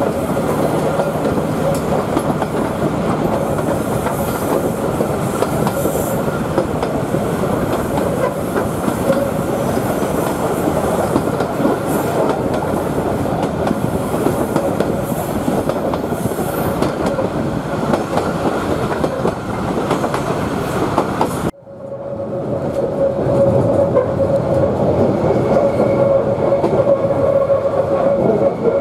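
Queensland Rail 2000 class rail motor running through tight curves, with a thin steady wheel squeal over the running noise of the wheels on the rails. About three-quarters of the way in, the sound cuts out abruptly and fades back up as heard from inside the cab, where the squeal grows stronger and a higher squeal joins it near the end.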